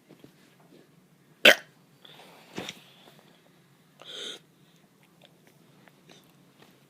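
A child forcing short, poor burps: a sharp hiccup-like gulp about a second and a half in, the loudest, another about a second later, and a brief breathy one near four seconds.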